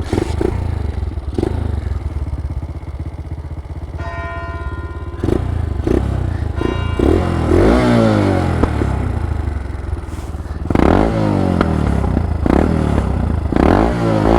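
Single-cylinder four-stroke Honda Dax-style moped engine, which starts running suddenly and is then ridden. The revs rise and fall twice through the gears, with a brief steady tone about four seconds in. The exhaust has a leak, which the rider puts down to a loose exhaust bolt.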